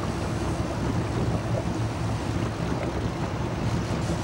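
A boat's engine running steadily with a low hum, under wind noise on the microphone and the wash of waves.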